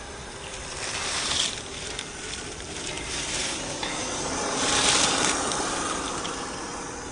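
Axial SCX10 II RC crawler driving over the trail, its tires making a gritty hissing, crunching noise that swells three times, loudest about five seconds in.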